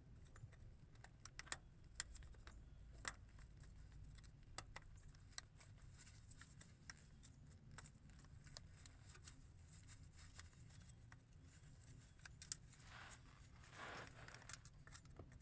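Faint, irregular small metal clicks and scrapes of a tiny screwdriver prying at the retaining spring clip on an oil cooler line fitting, with a brief rustle near the end.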